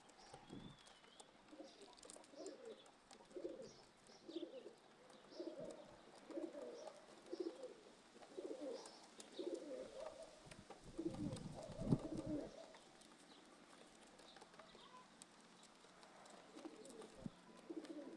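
Pigeons cooing: a run of low, repeated coos for about ten seconds, a pause, then a few more near the end, with faint high chirps of small birds behind. A brief knock stands out about twelve seconds in.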